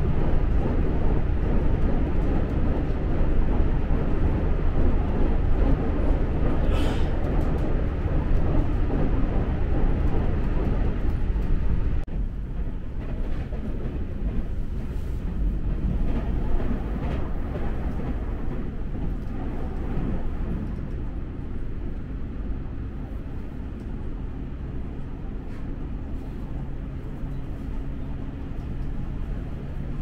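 Tokaido Line local train running on the rails, a steady low rumble. There is a brief high hiss about seven seconds in. The rumble drops a little about twelve seconds in.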